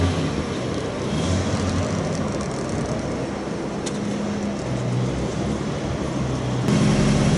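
Background noise with faint, broken low tones, then about six and a half seconds in a sudden jump to a louder, steady engine idle from the Porsche 968's 3.0-litre inline-four.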